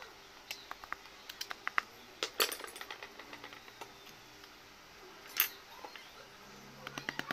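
Metal hand tools clinking and knocking against wood as a chisel is set down and a hand saw taken up: scattered light clinks, some with a brief ring, and two louder knocks. A quick run of light ticks comes near the end.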